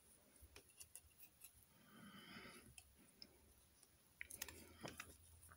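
Near silence with a few faint plastic clicks of LEGO pieces as the figure's ball joints and hinges are moved, a small cluster of them near the end.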